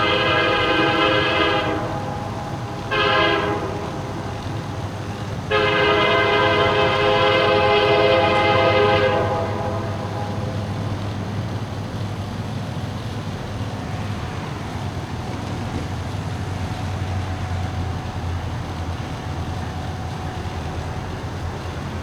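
Diesel freight locomotive air horn sounding the grade-crossing signal: the end of a long blast, one short blast, then a final long blast of about four seconds. After it the train rolls past with a steady low rumble.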